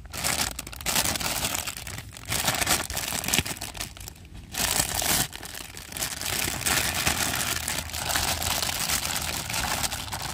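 Thin clear plastic bag crinkling and crackling as a plastic toy truck is pulled out of it, with a short pause about four seconds in.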